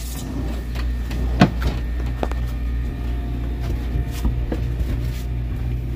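A boat's cabin door being unlatched and opened, giving a few sharp clicks and knocks, the loudest about a second and a half in, over a steady low hum.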